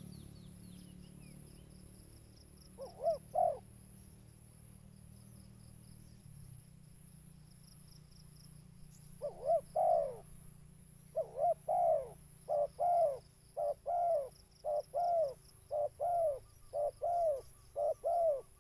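Spotted dove cooing: a quick pair of coos about three seconds in, then, from about nine seconds on, a steady run of repeated coos, close to two a second.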